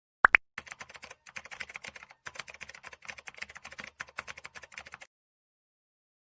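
Computer keyboard typing: two loud sharp clicks, then a quick run of keystrokes with a couple of brief pauses, stopping about a second before the end.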